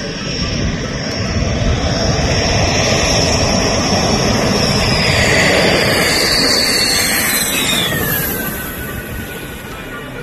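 Dassault Rafale fighter jet flying past. The jet roar builds to a peak in the middle, then a high whine drops steeply in pitch as the jet passes, and the roar fades away.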